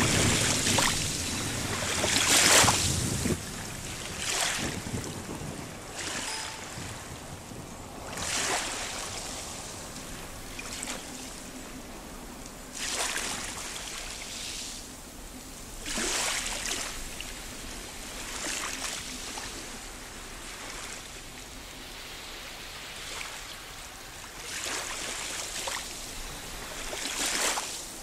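Waves washing in over beach rocks, each surge a rush of hiss lasting a second or two and coming every few seconds. The biggest wash is in the first three seconds.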